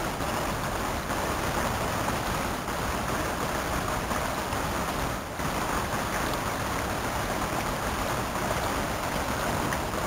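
Shallow creek water running steadily through and around a small gold sluice box.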